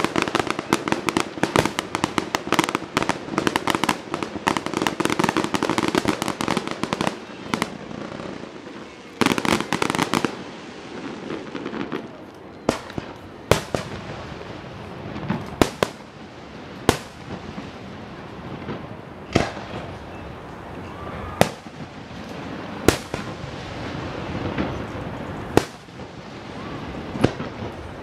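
Fireworks display finale: a dense, rapid barrage of bangs and crackles for about the first ten seconds, thinning out to single sharp bangs every second or two.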